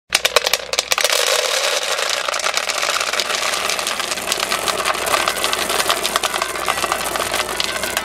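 Dry dog kibble poured into a bowl. The first pellets hit the empty bowl as a scatter of separate sharp clicks, then a dense, continuous rattle as the pile builds.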